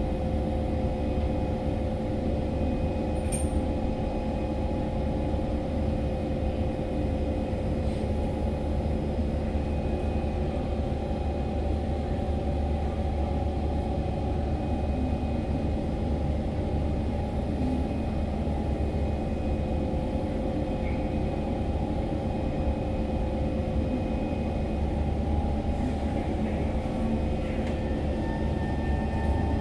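Cabin of an SMRT C151 train standing at a station: a steady hum from the train's onboard equipment over a low rumble. Right at the end a rising whine begins as the traction motors start the train moving.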